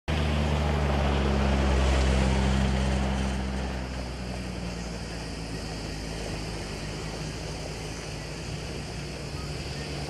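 An engine's steady low hum over a constant rushing noise. The hum is loudest for the first three seconds or so, then fades to a lower, even level.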